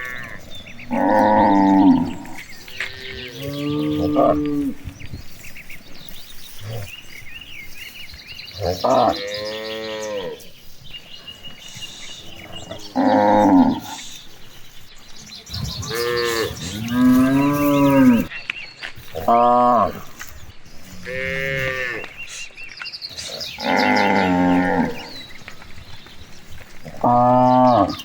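Cattle mooing again and again, about nine separate calls, each a second or two long, rising then falling in pitch.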